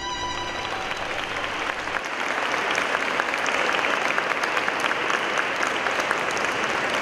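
Audience applause, building over the first two seconds as the last notes of orchestral music die away, then holding steady.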